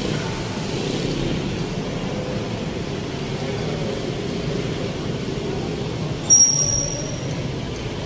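Steady street traffic noise from passing cars and motorcycles. About six seconds in comes a brief, loud, high-pitched squeal lasting about a second.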